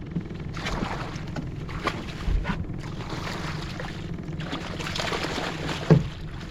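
A small boat's motor runs steadily with a low hum, under wind rushing on the microphone and scattered knocks and splashes. There is a sharper knock near the end.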